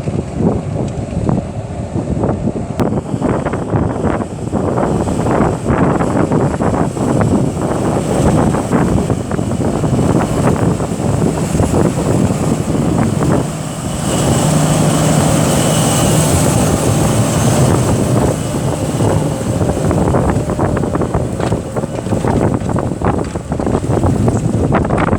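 Fendt 936 tractor engine running steadily under load while pulling a plough, with wind noise on the microphone. A steadier low engine hum stands out from about 14 to 19 seconds in.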